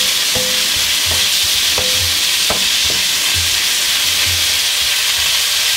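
Zucchini and cherry tomatoes sizzling in a hot wok, stirred with a wooden spoon that knocks and scrapes against the pan at irregular intervals.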